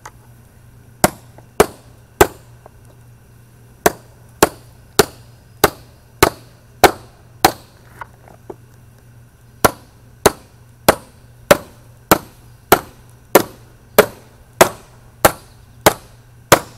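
Hammer striking a screwdriver used as a chisel, punching and cutting through the sheet-metal lid of a sealed ammo spam can. Sharp strikes come about one every 0.6 s in three runs, with short pauses about two and eight seconds in.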